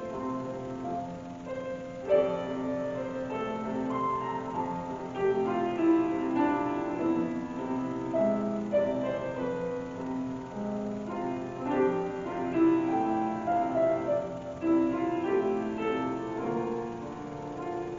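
Piano playing a piece of held notes and chords.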